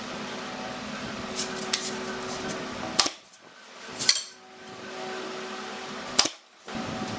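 Pneumatic nail gun firing three nails into wooden frame joints: three sharp shots, the first two about a second apart and the third two seconds later, over a steady hum.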